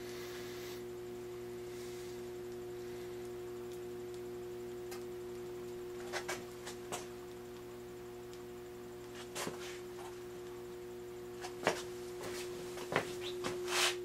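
Steady electrical hum from an electric furnace with both resistance heating elements energized and glowing red-hot. From about six seconds in, a scatter of short sharp clicks and ticks sounds over the hum.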